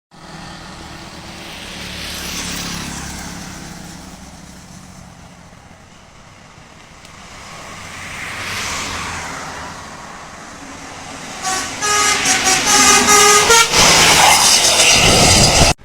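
Traffic noise swells and fades twice as vehicles pass. Then a bus's telolet horn, a multi-tone musical horn, loudly plays a short melody of stepped notes as the bus passes close, and the sound cuts off suddenly near the end.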